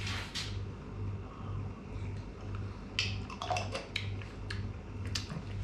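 A small container of tomato sauce being handled and opened by hand: a few sharp clicks about three seconds in and again near the end, over a steady low hum.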